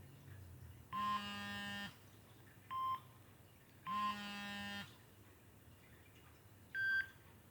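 Electronic beeps from a Samsung SGH-B100 mobile phone: two longer buzzy tones of about a second each, about three seconds apart, and two short single beeps between and after them, spaced unevenly.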